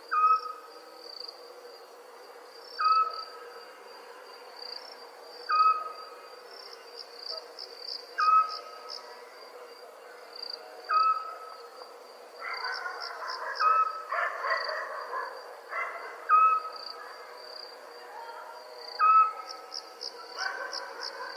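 Night ambience of crickets chirping steadily, with pulsed trills now and then. Over it a short whistled call repeats about every two and a half seconds and is the loudest sound. A rougher chorus of calls comes in a little past the middle and again near the end.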